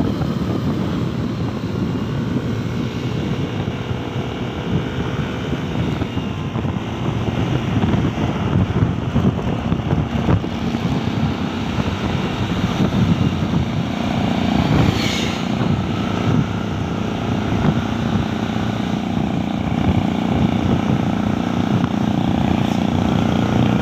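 Yamaha Aerox scooter's single-cylinder engine, bored out to 190cc, running steadily under load as the scooter is ridden uphill.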